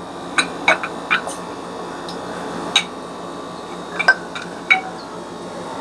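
Metal bearing parts and tools being handled: a scattering of sharp clicks and clinks, about seven, over a steady background hum.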